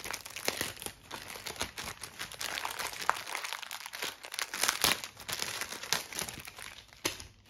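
Plastic packaging bags crinkling and rustling as hands handle the bagged parts of a new standing fan, in a steady run of irregular crackles.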